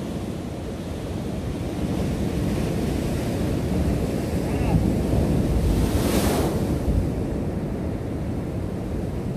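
Ocean waves surging and breaking against a rock shelf, with wind buffeting the microphone. The surf swells through the middle, and a little past halfway a wave breaks with a brief hiss of spray.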